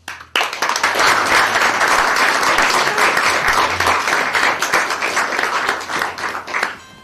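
Audience applauding: many people clapping together, starting suddenly and dying away near the end.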